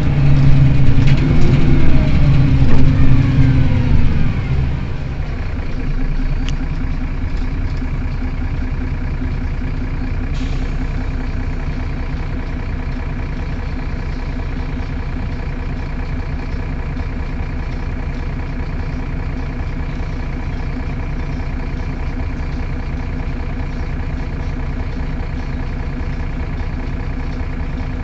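Mercedes-Benz Citaro city bus's rear engine running, at first louder with its pitch falling over the first four or five seconds, then idling steadily.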